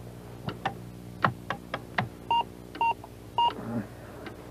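Several irregular keystrokes on a computer keyboard, then three short, flat, identical computer beeps about half a second apart: the error beep of a computer rejecting what is typed. A clock ticks faintly and steadily underneath.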